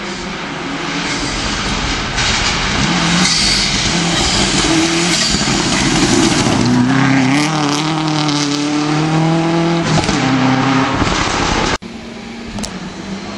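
Subaru Impreza rally car at full throttle on a gravel stage, its flat-four engine revving up and changing pitch through the gears as it approaches and passes, loudest in the middle. Near the end the sound cuts abruptly to a quieter, more distant engine of the next car approaching.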